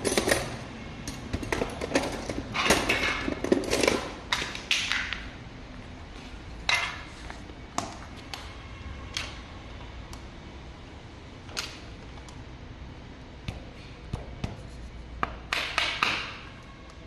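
Irregular clinks, knocks and short scrapes of hand work with tools and metal parts, busiest in the first few seconds and again near the end.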